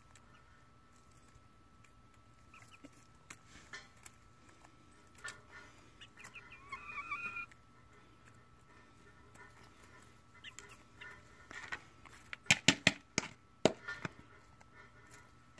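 Hens feeding from a plastic tub: scattered sharp taps of beaks pecking at the tub, a short wavering cluck about six seconds in, and a quick run of loud pecks about twelve seconds in.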